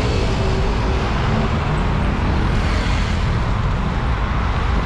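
Steady road traffic noise with a heavy low rumble, heard from a bicycle riding downhill through city traffic.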